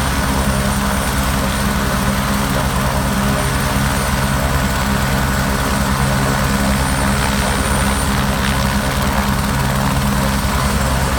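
Helicopter running close by: a loud, steady engine-and-rotor drone with a fast, even beat from the blades.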